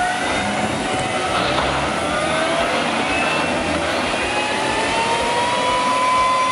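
Tracked military vehicle's engine running hard under load while the vehicle tries to back itself out, its whine climbing slowly in pitch over a rough, clattering rumble.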